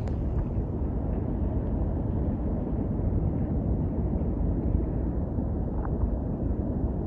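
Steady low rumble of outdoor background noise, like wind on the microphone mixed with distant traffic.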